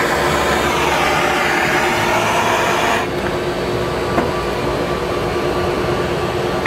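Handheld gas torch on a yellow fuel cylinder hissing steadily as its flame browns the tops of oysters on the half shell. The flame is shut off about three seconds in, leaving a lower steady hum and a light click.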